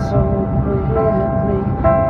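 Recorded rock music playing: guitar and sustained chords carrying a melodic line.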